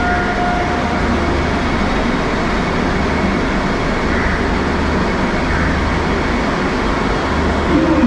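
Vande Bharat Express electric train running at speed: a steady, loud rush of wheel and air noise over a low hum, with faint steady tones near the start.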